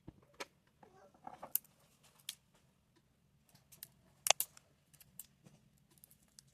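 Irregular sharp clicks and taps of small hand tools working on a phone, a few a second at most, the loudest about four seconds in.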